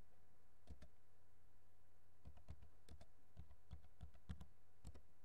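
Faint keystrokes on a computer keyboard, about a dozen irregular key presses as a password is typed at a terminal prompt, over a steady low hum.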